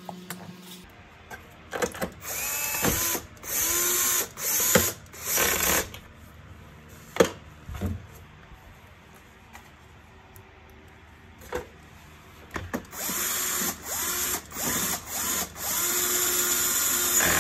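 Cordless electric screwdriver with a Torx 15 bit running in short bursts, driving screws into a vacuum cleaner's plastic housing. The motor's pitch rises and falls with each run. There are two spells of several runs each, with a single sharp knock between them.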